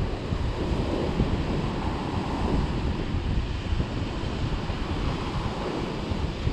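Surf breaking and washing along a rocky shore, with wind buffeting the microphone.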